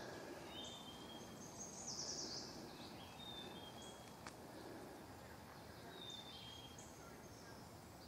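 Faint birdsong: several birds chirping and trilling in short high calls over a low outdoor background hiss.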